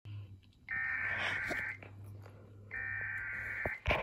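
Emergency Alert System SAME header: two bursts of digital data tones, each about a second long and about a second apart, over a low steady hum. A short sharp crackle comes near the end.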